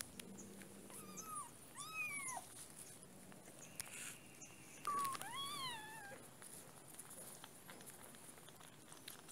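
Young kittens mewing several times in high-pitched, arched cries while nursing: two mews about one and two seconds in, then another pair about five seconds in.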